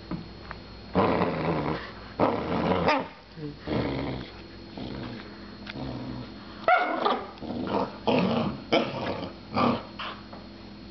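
Puppy growling in short, rough bursts, about seven of them, while it bites and tugs at a cloth in a game of tug-of-war.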